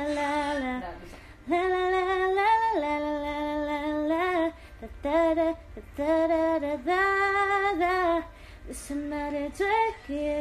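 A young woman singing solo, holding long notes in phrases of a second or more with short breaks between them.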